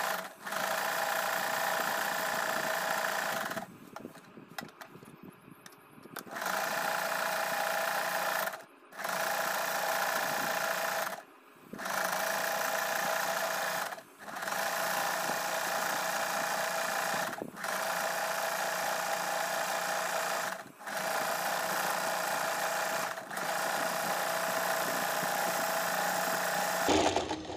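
Usha Stitch Magic electric sewing machine running steadily as it sews a decorative embroidery stitch. It stops briefly about every two to three seconds, with a longer pause about four seconds in.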